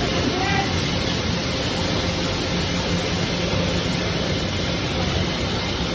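Bioprom 300 kW pellet burner firing a roaster, running with a steady, even roar and a low hum.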